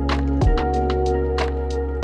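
Background music: an instrumental beat with a kick drum about half a second in, quick hi-hat ticks and held low notes and chords.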